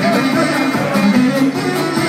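Live Balkan folk music: men's voices singing with vibrato over a small plucked string instrument played with a pick, amplified through PA speakers.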